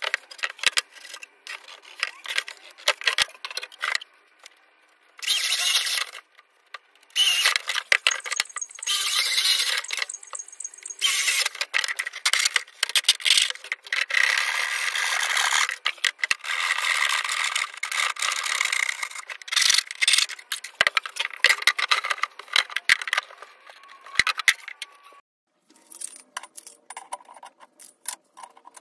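Hand work on materials at a workbench: irregular scraping and rattling with sharp clicks, broken by several longer scraping stretches of a second or more.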